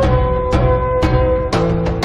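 Background music: held chords with a note struck about every half second, giving a steady beat.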